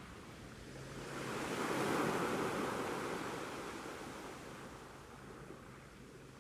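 Sea waves breaking on a shore: one wave swells up about a second in, peaks, and washes out slowly over the next few seconds.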